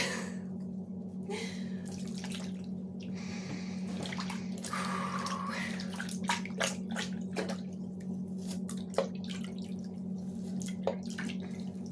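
Water running into a bathroom sink with irregular splashes and drips as hands wash and rinse a face, over a steady low hum.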